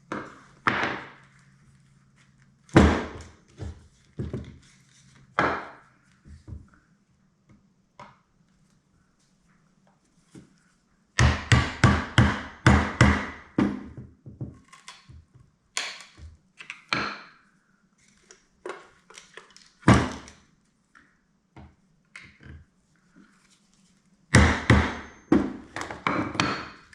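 Sharp knocks and strikes of tools on the corroded Whirlpool GC2000XE garbage disposal as it is taken apart. There are scattered single hits, and two quick runs of several strikes a second, about a third of the way in and near the end.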